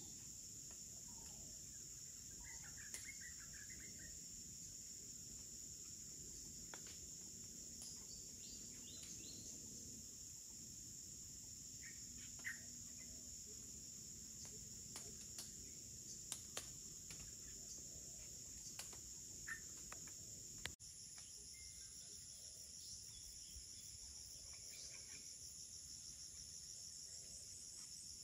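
Jungle insect chorus: a steady, high-pitched drone, with a few faint bird chirps and small clicks over it. About 21 seconds in, a second, higher insect drone joins.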